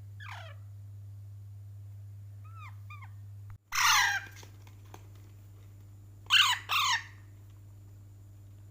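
Pet parrot calling: a few soft downward-sliding chirps, then a loud squawk about four seconds in and two more in quick succession a couple of seconds later.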